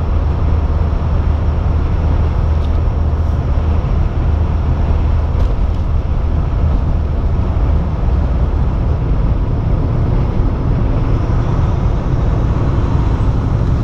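Heavy truck cruising at highway speed, heard from inside the cab: a steady low engine drone with road and tyre noise.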